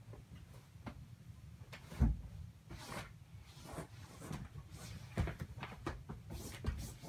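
Bed being made by hand: fabric rustling as a fitted sheet is smoothed and pillows are handled, with scattered soft knocks and one louder low thump about two seconds in. Light footsteps follow near the end.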